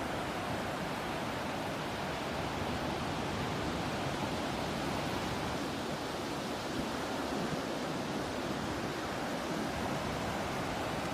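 Ocean surf and sea breeze: a steady, even wash of waves and wind with no breaks or distinct calls.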